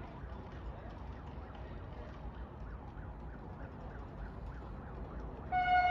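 A distant emergency-vehicle siren yelping, rising and falling about three times a second over a low rumble. About five and a half seconds in, a loud, steady train horn starts up.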